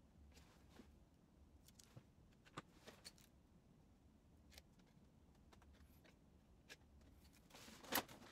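Faint, sparse handling noise: scattered light clicks and taps as the ink-supply tubing and plastic parts of an opened inkjet printer are handled by hand, with one louder brief noise near the end.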